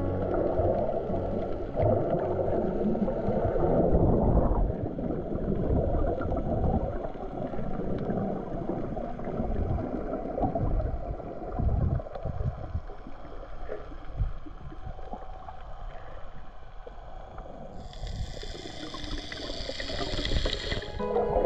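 Muffled underwater water noise, an uneven low swishing and gurgling of sea water, with a stretch of high hiss lasting about three seconds near the end.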